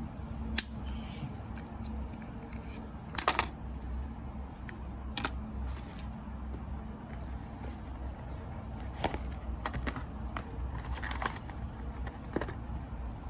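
Scattered clicks and rustles of small boxes and plastic wrapping being handled and opened during an unboxing of wireless earbuds, over a steady low hum.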